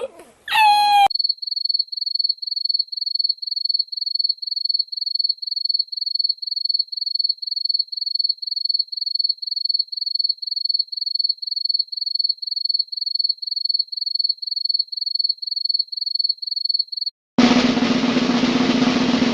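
Cricket-chirping 'awkward silence' sound effect: one high chirp repeated evenly, a little over twice a second. Near the end it stops and a snare drum roll begins.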